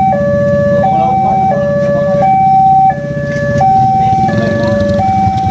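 Railway level-crossing warning alarm sounding as a train approaches, an electronic two-tone signal that alternates evenly between a higher and a lower note, each held for under a second. Motorcycle engines idling at the barrier give a low rumble underneath.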